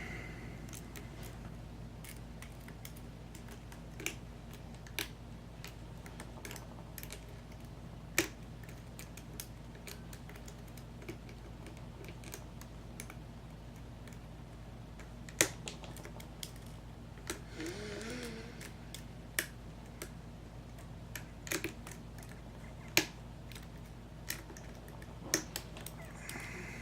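Small, irregular clicks and ticks of a lock pick and tension wrench working the pins inside an American Lock 5100 series padlock, some clicks sharper than others, over a steady low hum.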